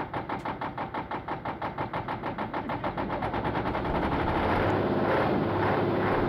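Praga V3S's air-cooled inline-six diesel running just after a cold start with a distinct pulsing beat, its exhaust smoking heavily. About four seconds in, the firing evens out and the engine runs smoother and a little faster and louder as it catches properly.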